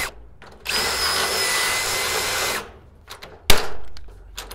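Cordless drill running for about two seconds, drilling out a hinge hole through the sheet-metal door jamb, followed by a single sharp snap, a pop rivet being set.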